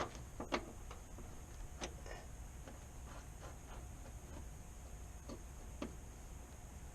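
A handful of short, scattered clicks and knocks of hand tools and metal parts being handled during brake work, spaced unevenly about a second apart.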